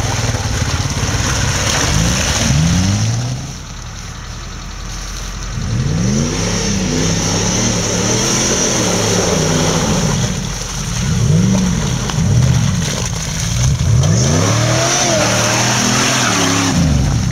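Off-road 4x4's engine revving up and down again and again under bursts of throttle. The rises and falls come every second or two, with a brief quieter lull about four seconds in.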